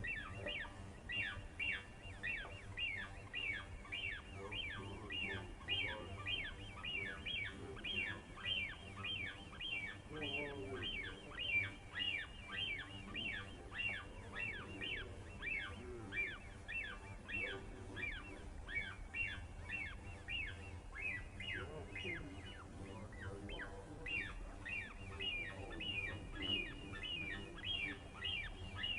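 Many small birds chattering together: a steady stream of short, downward-sliding chirps, several a second, with a few lower calls mixed in.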